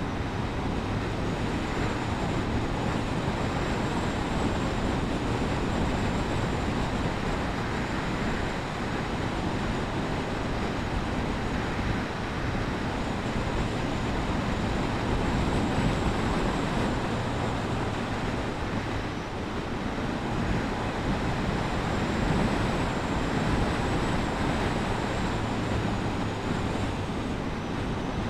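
Suzuki GSF1250 Bandit motorcycle cruising at a steady speed: a constant rush of wind and road noise, with the engine's hum faintly underneath.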